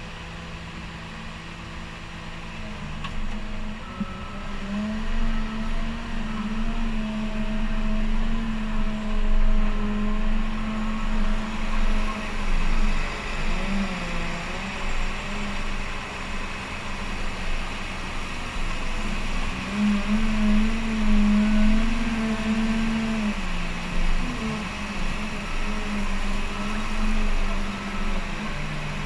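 Cat 930K wheel loader's diesel engine working through a loading cycle, revving up and dropping back several times. A steady high whine joins it about midway.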